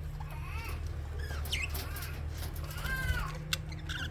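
Budgerigars chirping and warbling: a string of short, arching chirps and squeaks, over a steady low hum.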